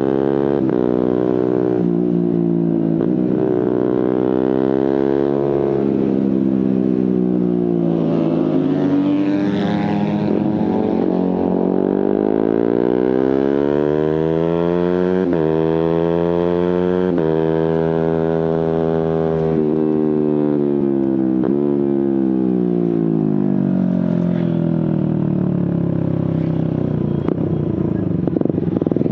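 Suzuki GSX-R150's single-cylinder engine through a Prospeed aftermarket exhaust, accelerating and slowing on the road. Its pitch climbs through the revs and drops abruptly at each quickshifter gear change, then falls away in long glides as the bike slows.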